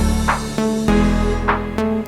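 Background music with a heavy bass line and a swelling sweep that recurs about every second.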